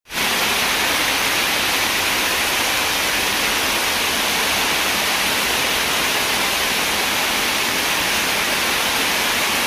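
Heavy rain pouring down steadily onto flooded ground: a dense, even hiss that does not let up.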